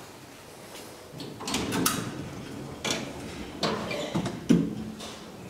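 Schindler hydraulic elevator's sliding doors closing: a rolling rumble, then three clunks, the last the loudest, as the doors shut.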